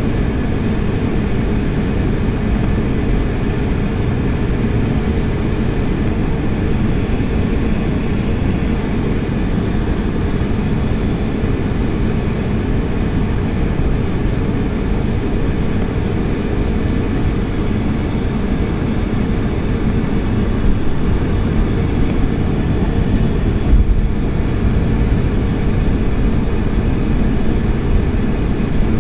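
Steady cabin rumble inside a Boeing 757-200 taxiing on the ground with its jet engines near idle, mostly deep and even with a faint steady hum above it. A couple of brief bumps come in the last third.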